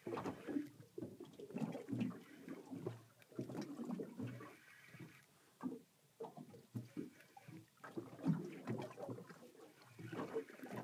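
Small waves slapping and lapping irregularly against the hull of a drifting boat.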